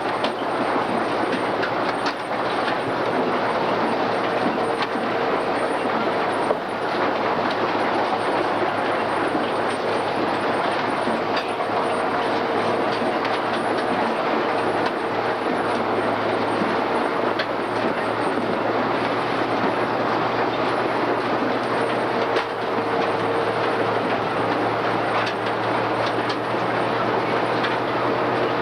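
A Case IH 885XL tractor's diesel engine running steadily under load, with the continuous clattering rattle of a Grimme RowOver potato harvester at work.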